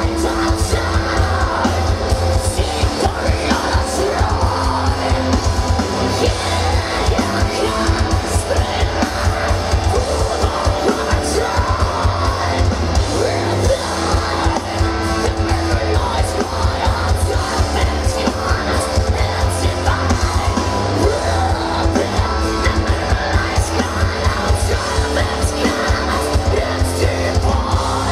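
Female-fronted heavy metal band playing loud and live: distorted guitars, rapid kick drums and sung and screamed vocals.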